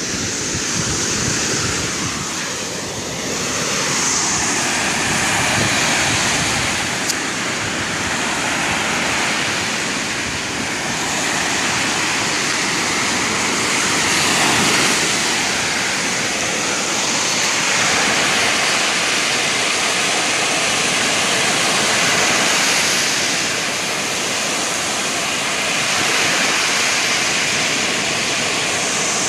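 Ocean surf breaking on a sandy shore: a steady rushing wash that swells and eases every few seconds as the waves come in.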